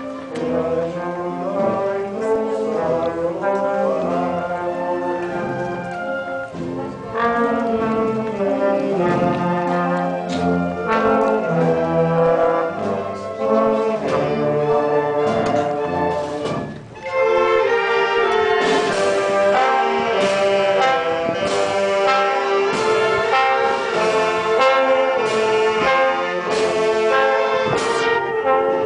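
Village brass band (filarmónica) playing a processional march, trombones and trumpets to the fore. About two-thirds of the way in the music drops briefly, then carries on with sharp percussion strikes on each beat.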